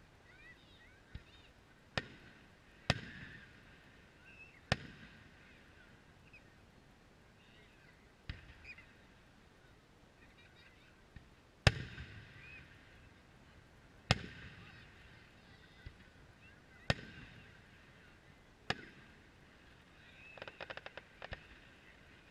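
Distant aerial fireworks shells bursting: about eight sharp booms spaced a few seconds apart, each with an echoing tail, the loudest about halfway through. Near the end comes a quick rattle of crackling reports.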